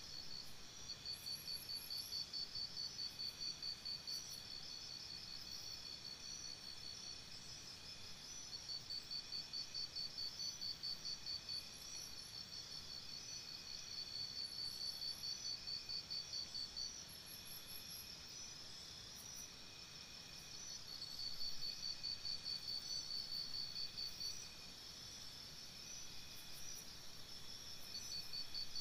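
Crickets chirping: several overlapping high-pitched pulsed trills, each train of rapid pulses lasting a couple of seconds and then repeating.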